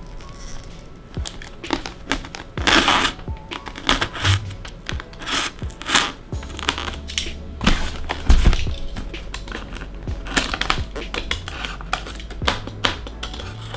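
Packaging being handled and pulled apart: irregular crinkling, tearing and rustling bursts, with background music underneath.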